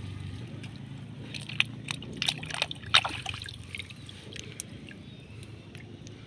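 A hand sloshing in shallow pond water and lifting out a handful of freshwater snails, with a cluster of small splashes and drips about one to three and a half seconds in. A steady low hum runs underneath.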